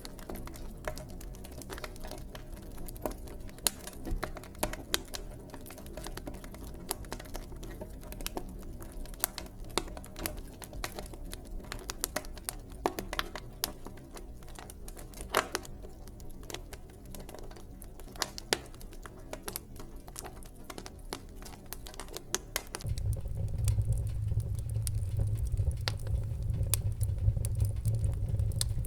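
Wood fire in a fireplace crackling, with frequent sharp pops and snaps. About 23 seconds in a low, steady rumble comes in and the sound gets louder.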